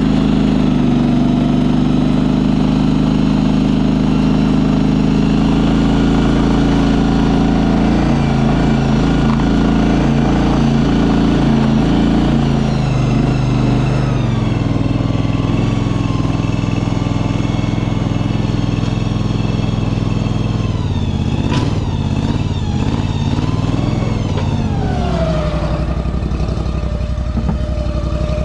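Small engine of a walk-behind shed-moving machine running steadily, its pitch shifting as it works under load while driving up onto a truck bed. A higher whine rises and falls a few times over it.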